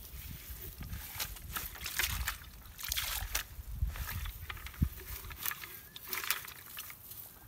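Close handling noise as small fish are unhooked and dropped into a plastic bucket with water in it: scattered rustles, small splashes and taps, and one sharper knock a little past the middle, over a low rumble.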